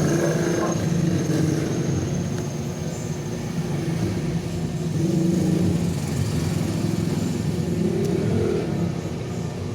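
A motor vehicle's engine running, a steady low rumble that swells and eases a little.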